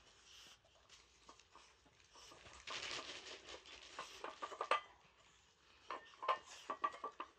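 Dogs eating from stainless steel bowls in a raised stand, their muzzles clinking the metal in quick bursts of small taps, heaviest about four seconds in and again near the end.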